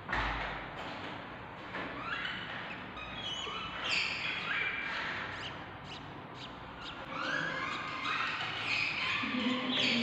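Budgerigar hen and her newborn chicks chirping in the nest box as she feeds them, in repeated short bursts, with small taps and scratches in the wood shavings.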